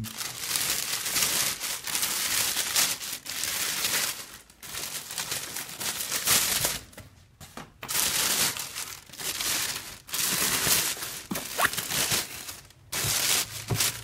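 Thin plastic shopping bag rustling and crinkling as a cardboard kettle box is worked out of it by hand, in stretches broken by short pauses.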